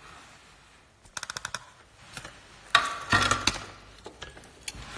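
Hands handling small plastic and metal parts at the bench. About a second in there is a rapid run of light clicks, near the middle a louder clatter, then a few scattered clicks.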